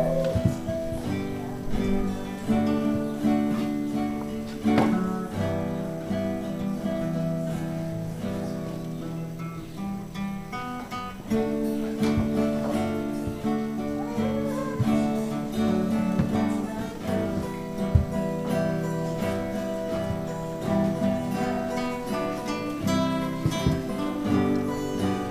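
Acoustic guitar music, strummed and plucked, playing a steady melodic passage.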